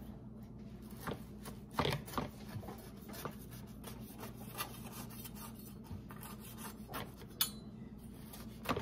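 Light kitchen handling sounds: scattered taps, clicks and scrapes of hands, utensils and dishes, over a steady low hum.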